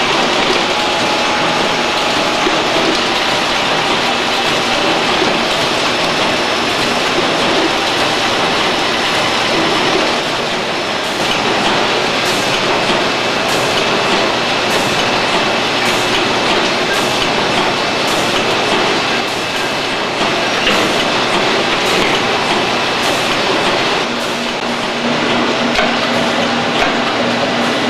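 Paper collating and wrapping line (Longford six-station collator feeding a Shanklin HS4 wrapper) running, with a loud, steady mechanical clatter. Through the middle stretch, sharp clicks repeat about once a second.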